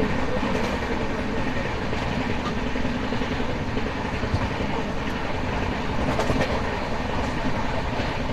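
Shatabdi passenger coach running at speed, heard from its open doorway: a steady rumble of wheels on the rails and air rushing past the door, with a few faint scattered clicks from the track.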